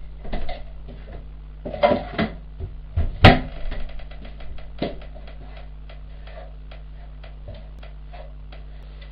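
Clatter and knocks of kitchen utensils and cookware being handled at the stove. There is one loud knock about three seconds in, followed by a run of light ticks, over a steady electrical hum.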